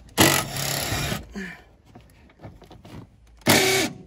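Tool work on the bolts holding in a car's rear seat: two rasping mechanical bursts, the first about a second long near the start and a shorter one near the end, with light clicks in between.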